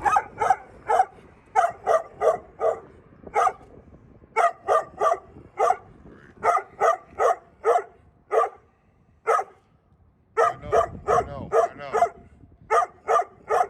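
A dog barking over and over in quick runs of short barks, slowing to a few single barks past the middle before picking up again.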